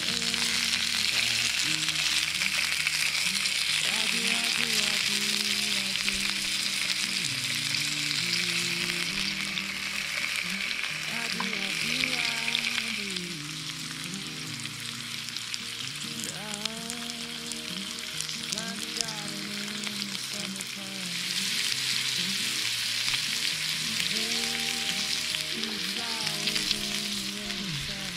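Meat sizzling in the Mini Trangia's small frying pan over an alcohol burner. The sizzle eases about 13 seconds in and picks up again about 8 seconds later. Soft background music plays underneath.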